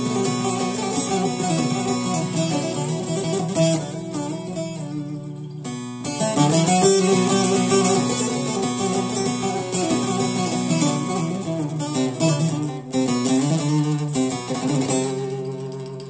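Long-necked bağlama (saz) played solo, a quick run of plucked notes with the strings ringing on. The picking breaks off briefly about six seconds in, then carries on, and it eases off near the end.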